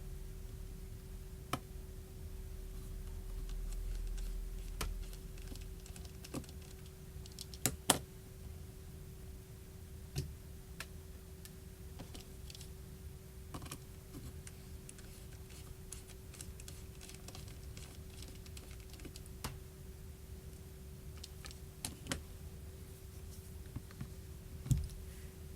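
Scattered light clicks and taps of a precision screwdriver and tiny phone screws being handled on a work surface, irregular and a few seconds apart, over a steady faint hum.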